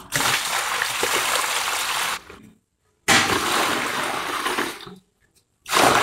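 Water poured from a small plastic bucket into a plastic tub, splashing into the water already in it. It comes in three pours of about two seconds each with short gaps between; the last starts near the end.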